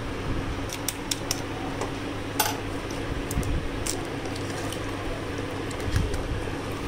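An egg being cracked and let into a bowl of creamed butter and sugar: a few light, scattered clicks and knocks over a steady low hum.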